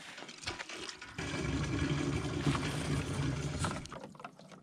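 Cast-iron campground hand water pump being worked: a few metal clanks from the handle, then water rushing steadily from the spout for about two and a half seconds before tailing off.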